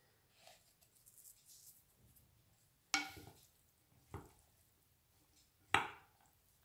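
Wooden spoon knocking against a glass mixing bowl while macaroni salad is stirred: three sharp knocks, each with a short ring, the first and last loudest.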